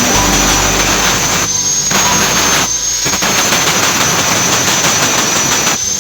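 Stick (arc) welding arc crackling and hissing steadily, with the arc briefly broken twice in the first half.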